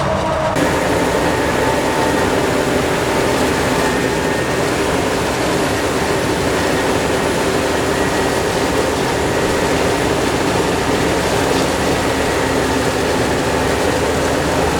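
Heavy diesel farm machinery working, a steady loud engine drone with a whine above it. The sound changes abruptly about half a second in.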